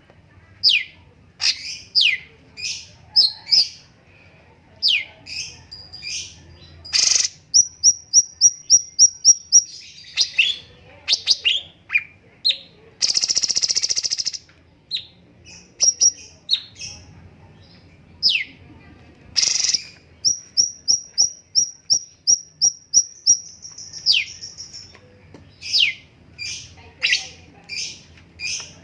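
Cucak cungkok songbird singing: a string of sharp, steeply falling whistled notes, twice broken by a fast, even train of short high notes. About halfway through there is a harsh, buzzy call lasting about a second.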